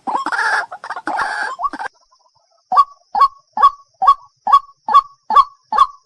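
Waterhen calling: a rapid, harsh chattering burst, then after a brief pause a steady series of short, loud notes repeated about twice a second.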